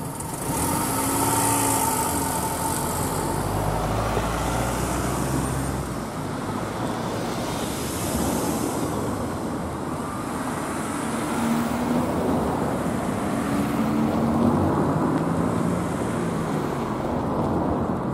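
Road traffic crossing a level crossing: cars drive over the tracks one after another with engine and tyre noise, followed by a diesel city bus pulling across near the end.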